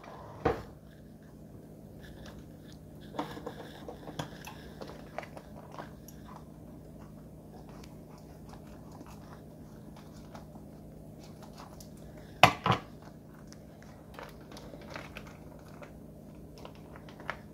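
Kitchen scissors snipping through a plastic vacuum-sealed fish bag, with the thin plastic crinkling as the fillet is worked out of it. A sharp double knock comes about twelve seconds in, and a faint steady low hum runs underneath.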